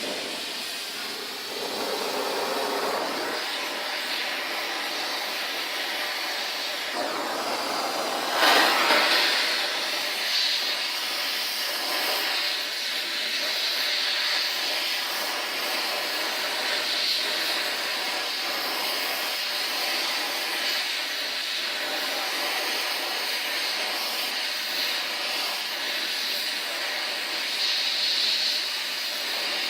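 Gas torch flame hissing steadily as it heats a steel piece of a vise toward cherry red for straightening, with a louder surge about eight and a half seconds in.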